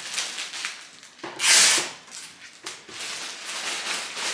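Clear sticky tape being pulled off the roll and wound around a bouquet's binding point, with cellophane rustling. One short, loud rasp about a second and a half in.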